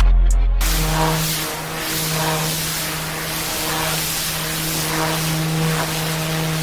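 Pressure washer engine running steadily under the hiss of water spraying, the spray swelling and easing every second or so.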